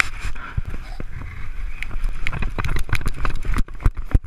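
Rapid, irregular clicks and knocks over a rumble from a GoPro strapped to a Border Terrier as it moves about: claws on a tiled floor and the camera housing jostling on the dog's back.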